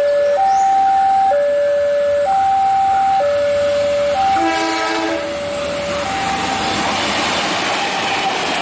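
Railway level-crossing warning alarm sounding two alternating tones, each about a second long. A train horn blows once about halfway through, and the noise of the arriving train builds over the last couple of seconds.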